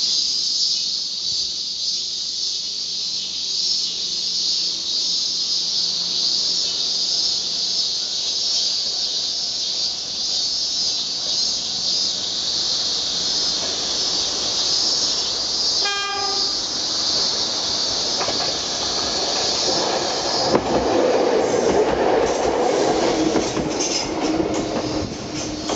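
Choshi Electric Railway 3000 series electric train (ex-Keio) gives one short blast on its high-pitched air horn about two-thirds of the way in. It then comes up and passes close by, wheels clattering over the rail joints. A steady high-pitched drone runs underneath until the passing train drowns it out.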